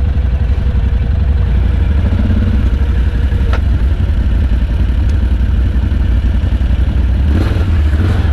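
ATV engines running at low revs with a steady low rumble, with a single click a little past three seconds in.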